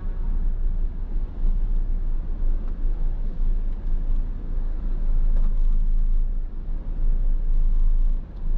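Tractor-trailer's diesel engine and road rumble heard from inside the cab as the truck moves off in slow traffic after a long standstill: a steady, deep, low rumble.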